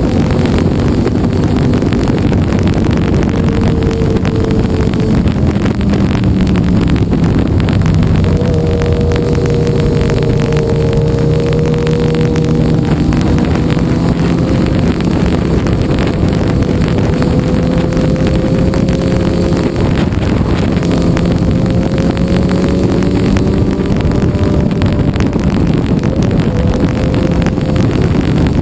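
A 2007 KTM 990 Super Duke's V-twin engine through an Akrapovič exhaust, pulling hard at track pace, its pitch climbing through long pulls and dropping at each gear change. Heavy wind rush on the microphone runs under it.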